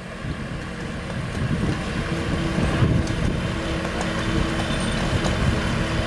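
An engine idling: a steady low rumble, with a steady hum joining about two seconds in.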